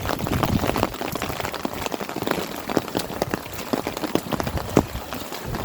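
Steady rain, with many irregular close drop hits over the hiss of falling and running water.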